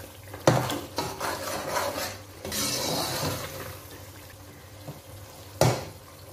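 Metal spoon stirring whole spices into frying tomato masala in a pan, with noisy scraping and hissing and two sharp clanks of spoon against pan, about half a second in and near the end.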